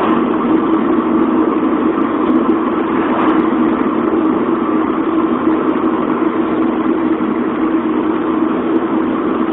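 Steady road and engine noise heard from inside a moving car.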